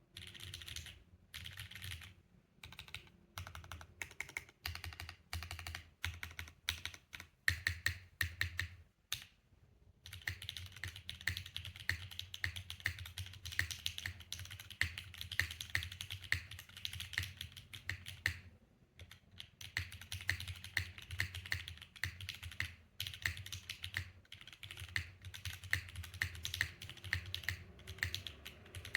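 Typing on an F1-8x v2 mechanical keyboard with Gateron Summertime linear switches in a polycarbonate plate, O-ring gasket mount with no foam, and GMK Shanshui keycaps. It starts as short bursts of keystrokes with gaps, then runs into fast continuous typing about a third of the way in, with a brief pause a little after halfway.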